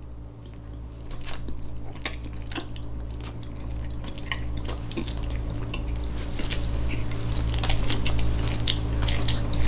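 Close-miked chewing of canned Spam: wet mouth sounds with many small sharp clicks, over a steady low hum.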